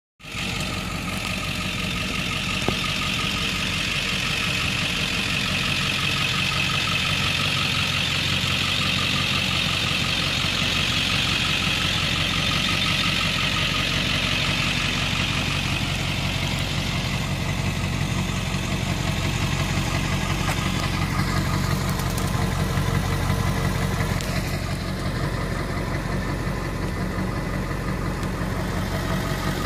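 Ford 7.3L Powerstroke V8 turbo diesel idling steadily.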